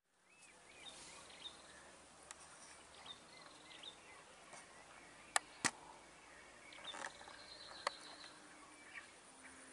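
Quiet swamp ambience with small birds chirping in short rising and falling notes, fading in at the start. A few sharp clicks stand out: two about a third of a second apart a little past halfway, and a third near the end.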